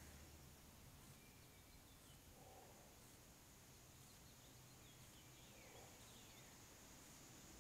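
Near silence: faint outdoor ambience with a few faint, short bird chirps in the middle.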